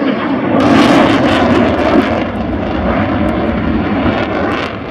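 Jet noise from a CF-18 Hornet fighter in flight, its two General Electric F404 turbofans giving a loud, rumbling rush with a crackle. The harsher upper edge sharpens about half a second in and the noise eases a little toward the end.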